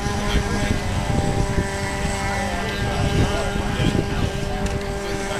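Small model boat motor running at a steady pitch, holding one even tone throughout.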